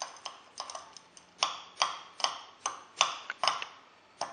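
A stirring rod clinking repeatedly against the inside of a glass tumbler of water, about two to three sharp ringing clinks a second in an uneven rhythm, as zinc sulfate is stirred in to dissolve.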